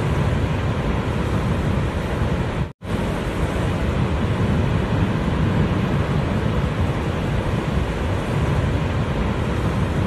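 Steady rushing roar of a large waterfall and the churning water at its brink, deep and heavy in the low end, with a split-second gap in the sound about three seconds in.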